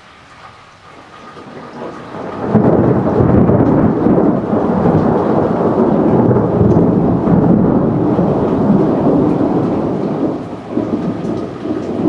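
Thunder from a nearby storm: a low grumble that builds over the first two seconds into a loud, deep, sustained rumble, then begins to waver and ease near the end.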